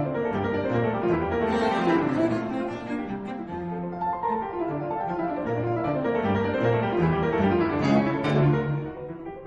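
Background music: classical-style instrumental with piano and low bowed strings.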